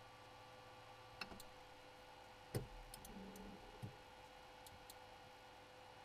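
A few scattered faint clicks from the rotary control knob of a Creality Ender 3 3D printer being turned and pressed, the loudest about two and a half seconds in. A faint steady hum runs underneath.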